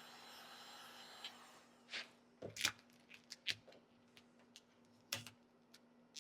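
Vinyl wrap film being handled and pressed onto a car door handle: a few soft, scattered crinkles and clicks. A faint steady hiss stops about a second and a half in.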